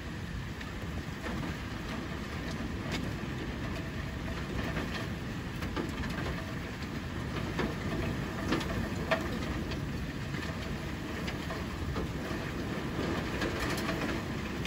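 Heavy rain and hail in a strong storm: a steady roar with scattered sharp ticks of hailstones striking, and two louder hits about eight and nine seconds in.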